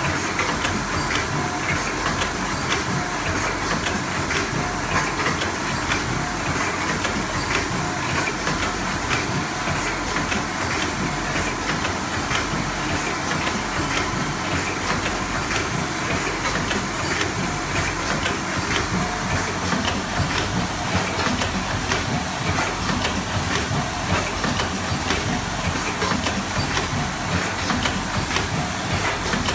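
Automatic triangular nylon-mesh tea bag packing machine running: a steady clatter of rapid clicks over a constant hiss.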